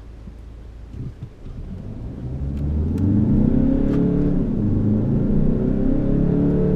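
Peugeot 508 2.0 BlueHDi four-cylinder turbodiesel pulling away under full throttle from a low idle. After a couple of knocks about a second in, the engine note climbs and grows loud, rising and then dropping back as the eight-speed automatic shifts up.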